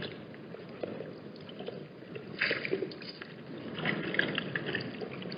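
Wind rumbling on the microphone, with light water splashing and sloshing at the watering hole. The splashing comes in short crackly patches about two and a half seconds in and again around four seconds.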